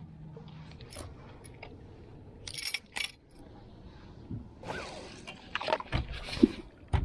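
Light handling noises as fishing tackle is handled on a boat deck: scattered clicks, scrapes and rustles, a few sharper clicks about halfway through, and a couple of dull knocks near the end.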